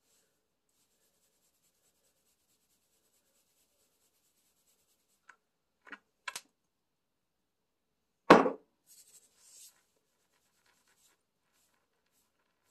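Fingers rubbing and tousling hair close to the microphone, working dry shampoo powder in: faint scratchy rustling, a few soft clicks around the middle, and one loud thump about eight seconds in.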